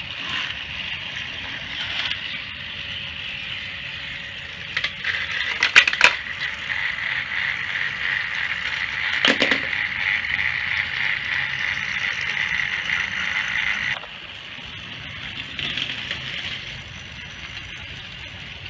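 Battery-powered Thomas & Friends toy engines running on plastic track: a steady high motor whine with the wheels rattling, a few sharp clacks about five to six seconds in and again near nine seconds. The whine drops quieter about fourteen seconds in.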